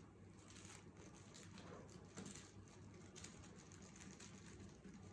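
Near silence: faint soft scratches and light taps of tailor's chalk marking silk fabric, over a low steady hum.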